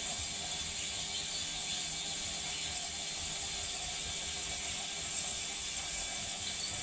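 Ultrasonic parts cleaner running: a steady high-pitched buzz over a faint low hum.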